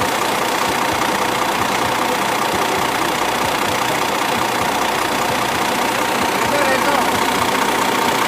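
Cummins diesel truck engine running steadily at idle, with an even mechanical clatter and a faint steady tone in it.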